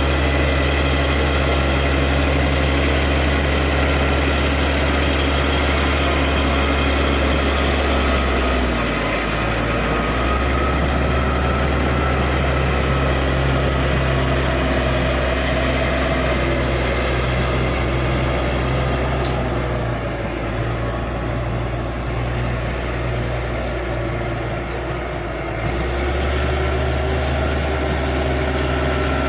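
Caterpillar D6G bulldozer's diesel engine running steadily with a high whine over it. The engine note drops briefly about a third of the way in and again for several seconds past the middle, then comes back up, as the dozer pushes clay.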